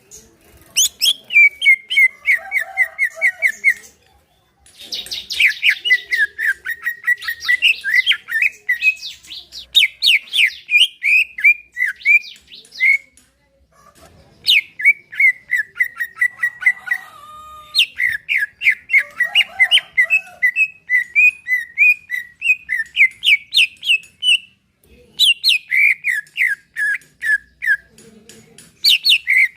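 Cucak ijo (green leafbird) singing: long runs of fast, chattering notes, many sliding downward, in phrases broken by short pauses about every ten seconds.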